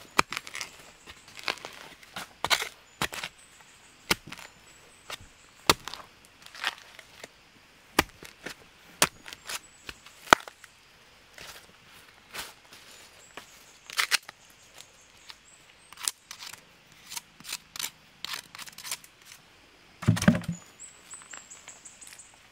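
Irregular sharp knocks and cracks of a long digging pole jabbing into soil and dry bamboo leaf litter to dig out a wild bamboo shoot, with a heavier, deeper thud near the end.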